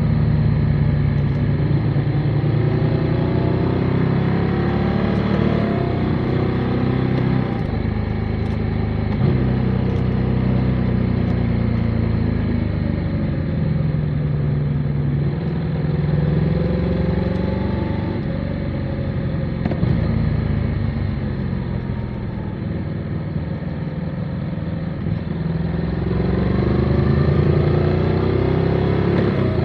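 Motorcycle engine running under way, its pitch rising and falling repeatedly as the rider works the throttle and gears through the bends.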